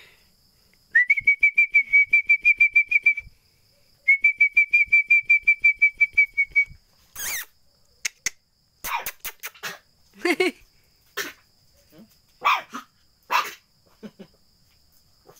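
Two trilled whistles, each about two seconds long at one steady high pitch with a quick flutter, then a series of short, sharp puppy barks.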